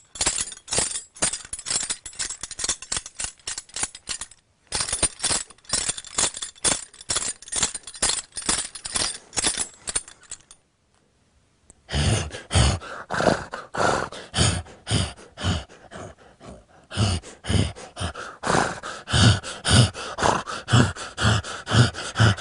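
Foley horse bridle jingling: metal tack shaken in a quick, even rhythm to match horse footsteps. After a short pause about halfway through, it starts again with a regular low thump under the jingling.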